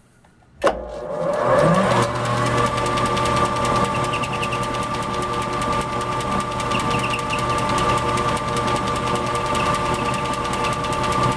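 Vernon metal lathe switched on with a sharp click about half a second in, spinning up over a second and a half, then running steadily with a hum and a steady whine.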